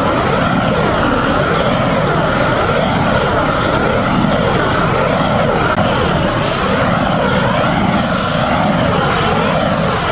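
A motor-driven machine running steadily with a high whine and a wavering, hollow tone, most likely equipment for clearing standing water off the flat roof.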